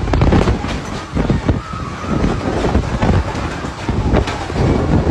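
Violent storm gusts blasting the phone's microphone: a heavy, rumbling rush of wind that swells and dips unevenly.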